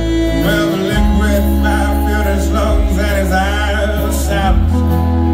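Live country band playing amplified: guitars and drums over a steady bass line, with a wavering lead melody on top.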